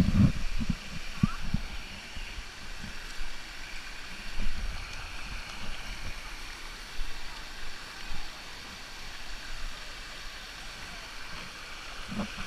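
Steady rush of small waterfall cascades pouring into a pool, with a few low thumps near the start.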